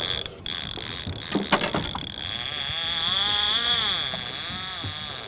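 Baitcasting reel's spool paying out line as a hooked fish runs, a whirring whine whose pitch wavers up and down as the line goes out faster and slower, with a few sharp clicks about a second in.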